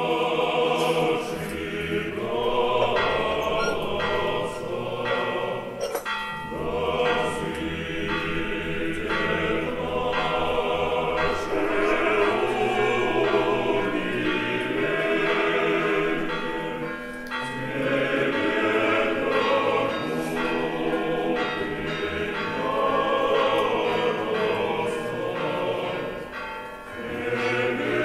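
A choir singing sacred music in sustained chords over low bass voices.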